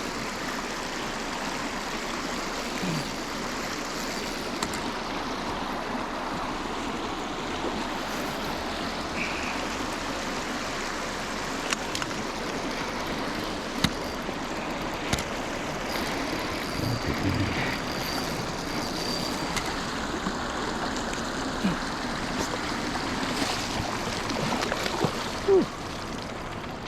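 River water rushing steadily over a riffle, an even flowing hiss, with a few short sharp clicks in the middle and one brief louder knock near the end.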